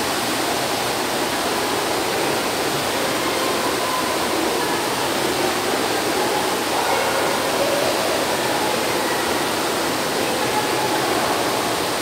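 Steady rushing water noise of an indoor swimming pool, an even wash of moving and splashing water with no break.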